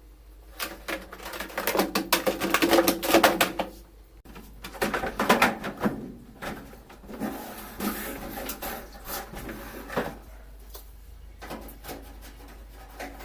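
Irregular clatter and knocks of washing-machine parts being handled and taken apart, dense for the first few seconds, then sparser.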